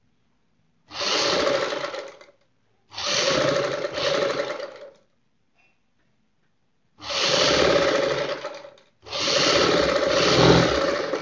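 Black straight-stitch sewing machine running in four spurts of one to two seconds each, stopping between them, as it stitches a seam.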